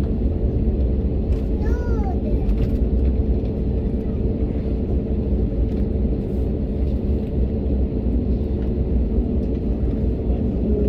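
Airbus A321neo cabin noise while taxiing onto the runway: a steady low rumble from the engines and the rolling aircraft, with a faint steady hum. A brief wavering voice-like sound comes about two seconds in.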